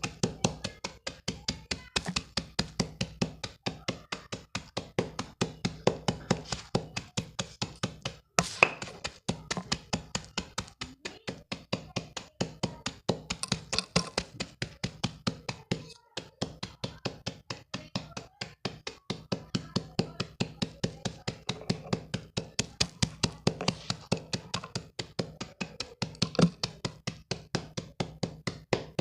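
Chalk being crushed and crumbled, a fast, even run of small crisp crunches, several a second.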